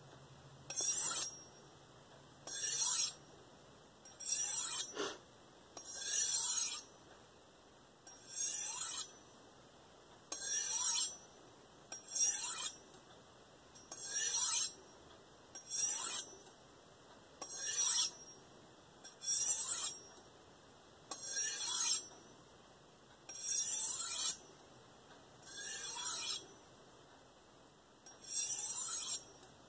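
KitchenAid santoku's steel blade swiped along an Idahone ceramic honing rod with light pressure: a short rasping hiss about every two seconds, about sixteen strokes. The strokes are the final apexing of the edge and take off the burr.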